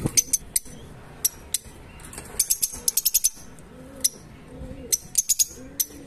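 A pair of Fischer's lovebirds chirping: short, shrill chirps in scattered bursts, with a quick run of them about halfway through. Low, arching calls can be heard in the background near the end.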